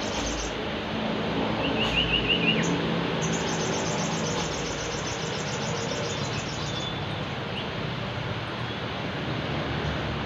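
Sogon bird calling: a quick run of about five notes, then a long rapid high-pitched trill lasting a few seconds, over a steady loud hiss-like background noise.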